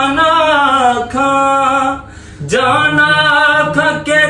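A man singing a Punjabi naat unaccompanied: one long held, ornamented phrase, a short breath about two seconds in, then another long held phrase.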